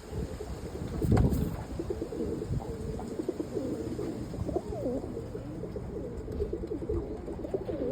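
Several roller pigeon cocks cooing, their coos overlapping; a brief thump about a second in.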